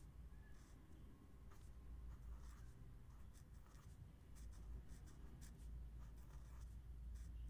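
Fine-tip pen writing on lined notebook paper: a run of faint, short scratchy strokes as the letters are drawn, over a low steady hum.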